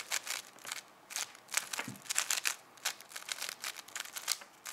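A plastic 5x5 speed cube being turned by hand: quick, irregular clicks and clacks of its layers snapping round, several turns a second in short runs, while its centres are being built.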